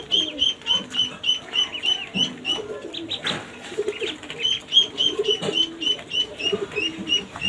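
Ducklings peeping: a steady run of short, high, slightly falling peeps at about four a second, with a break of a second or two in the middle.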